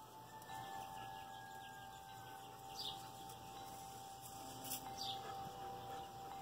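Faint, steady thin whine of a distant electric RC plane's motor in flight, its pitch dropping a little about half a second in. Two short falling chirps come about three and five seconds in.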